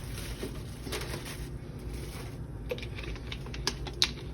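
A few scattered light clicks and taps from kitchen handling, over a low steady hum; the sharpest click comes near the end.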